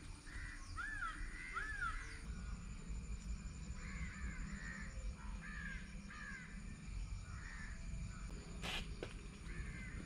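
Crows cawing repeatedly: two calls near the start, then a run of calls in the middle and a few more near the end, over a steady low rumble. One sharp click about three-quarters of the way through.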